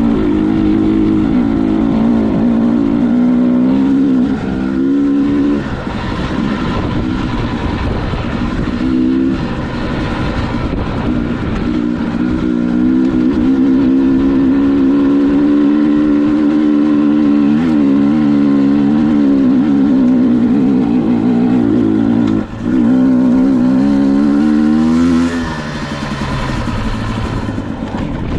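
Dirt bike engine running hard, its pitch rising and falling with the throttle, with a short dip about two-thirds of the way through and the engine easing off near the end.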